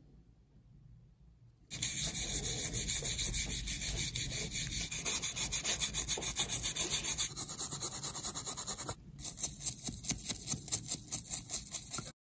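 Toothbrush scrubbing small plastic parts in soapy water: fast back-and-forth rubbing strokes that begin about two seconds in, stop briefly, then resume.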